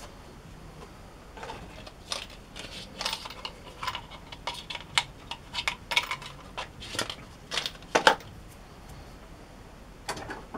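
Metal tools and parts being handled at a lathe: a string of irregular clicks and clinks for several seconds, the sharpest near the end, then they stop.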